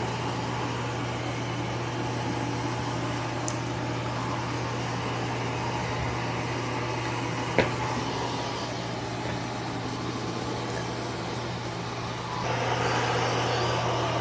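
eufy C28 robot vacuum and mop running as it cleans: a steady motor and suction whir over a constant low hum, with one sharp click partway through, getting louder near the end.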